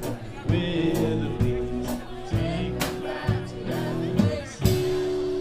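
Live blues band playing, with drum hits keeping a steady beat under bass, guitar and singing.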